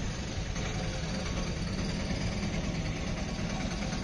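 Engine idling, a steady low even hum.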